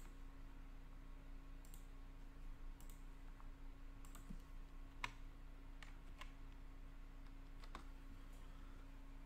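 Faint, scattered computer mouse clicks, about seven over several seconds, the sharpest about five seconds in, over a low steady hum.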